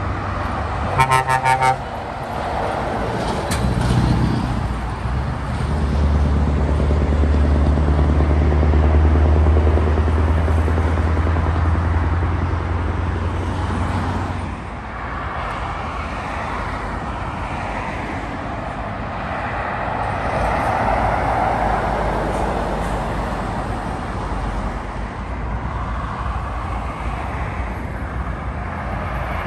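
A vehicle horn toots briefly about a second in. Then a lorry's diesel engine runs low and steady for about ten seconds as it passes, stopping abruptly at a cut, and general road traffic noise follows.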